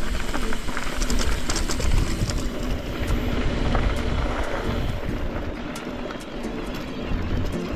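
Riding noise of a Trek Rail e-mountain bike on a trail: wind buffeting the camera microphone as a low, uneven rumble, with tyre and trail noise and scattered rattles and clicks.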